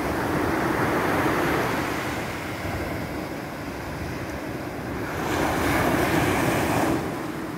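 Small sea waves breaking and washing up a sandy beach, swelling twice, the louder surge about five seconds in as a wave breaks at the shoreline. Wind rumbles on the microphone underneath.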